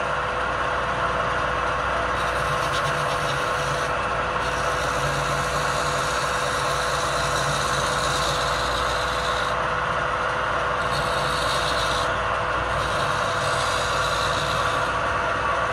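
Wood lathe running steadily with a constant hum while a hand-held chisel cuts the spinning wooden blank, a continuous scraping hiss that thins out briefly a few times.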